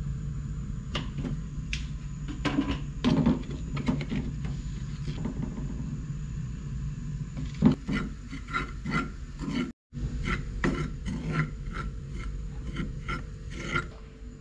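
A spatula and then a metal spoon scrape and stir dry chili and curry powder (thuna paha) around a small non-stick frying pan as it roasts, in a series of short scrapes that come about two a second in the second half. A steady low rumble runs underneath.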